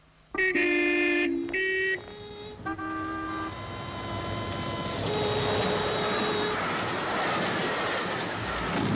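A horn gives three short toots, then a longer steady tone, as a passenger train approaches a level crossing. The rushing rumble of the train passing the crossing builds over the second half.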